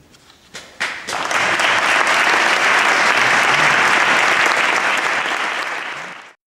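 Audience applauding: a few first claps, then full, dense applause from about a second in, which cuts off abruptly near the end.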